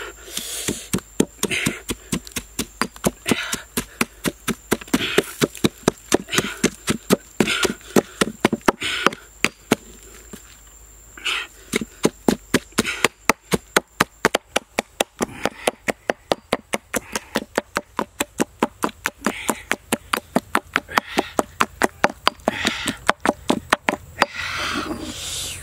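Stone pestle pounding red chilies in a stone mortar: a steady run of knocks, about three to four a second, with a short pause about ten seconds in before the pounding resumes.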